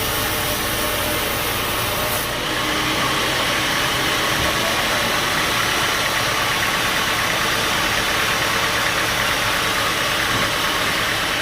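Band sawmill running, a steady loud mechanical drone whose tone shifts about two seconds in.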